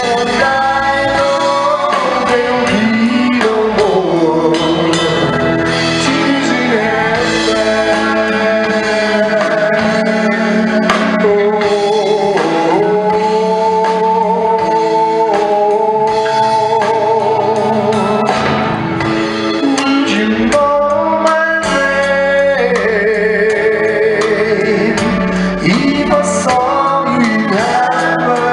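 A song with male and female singing over instrumental accompaniment, the voices holding long notes.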